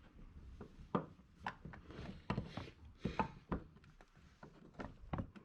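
Snap ring pliers and steel drum-brake hardware clicking and knocking against each other as a snap ring on a brake-shoe pin is worked open. There are about seven or eight sharp irregular clicks, with faint scraping between them.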